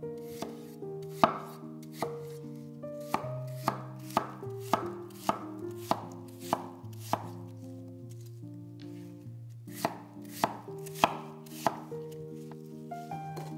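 A knife chopping on a cutting board: a series of sharp, irregular strikes, pausing for about two seconds partway through, over soft background music.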